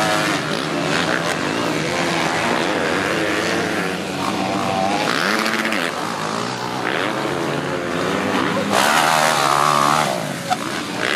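Motocross bike engines revving up and down as riders go round a dirt track, the pitch rising and falling with the throttle. One bike gets louder close by near the end.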